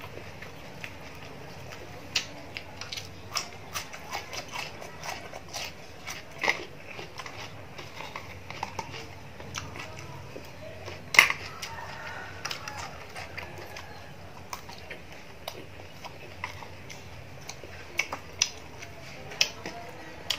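A person eating fried fish with raw lettuce and cucumber: chewing and crunching, with many short sharp clicks and snaps, the loudest about eleven seconds in.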